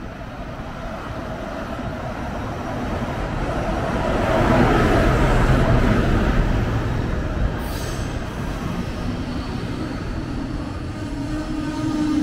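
A train passing at a station platform, its rumble growing louder to a peak about halfway through, then running on more steadily.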